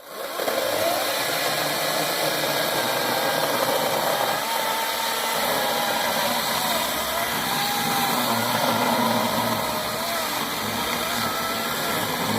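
14-inch Hart electric chainsaw starting up suddenly and running steadily, its motor pitch wavering up and down as the chain cuts into the tree.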